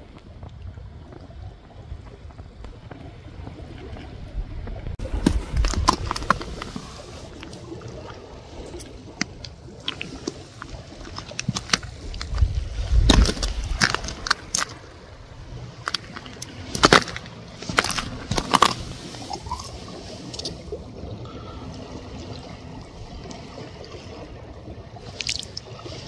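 Wet tidal mud squelching and sloshing as hands dig through it, with scattered sharp clicks and knocks of shells and stones.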